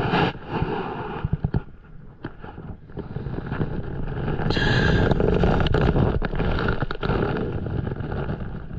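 Wind buffeting the microphone as a low rumble, swelling to its loudest about halfway through, with a few sharp knocks and clicks of gear being handled on the paddleboard near the start.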